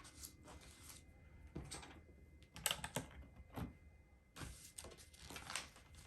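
LEGO plastic bricks clicking and rattling as they are handled and fitted together, in several short clusters of sharp clicks.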